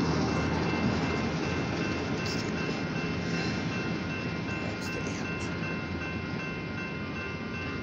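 Alco S-2 switcher locomotive's diesel engine running, a steady low rumble with a faint steady whine above it, slowly fading.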